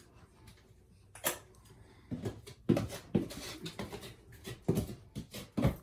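Putty knife scraping and clicking against a tray and the wall while spackle is spread, in several short separate strokes.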